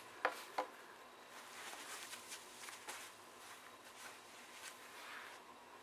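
Quiet handling noise: two soft clicks in the first second, then faint, scattered rustling.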